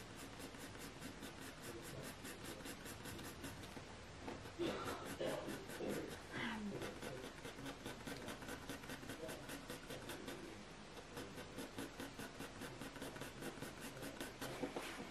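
Graphite pencil scratching across hot-press watercolour paper in quick, rhythmic short strokes, several a second, as grass strands are flicked in.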